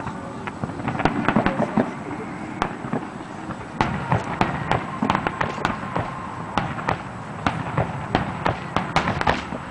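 Fireworks display: aerial shells bursting in many sharp, irregular bangs and crackles that come in quick clusters.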